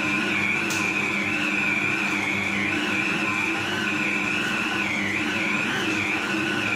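Electric mixer running steadily while kneading chapati dough, its motor giving a high whine that wavers slightly in pitch as the dough drags on the beaters.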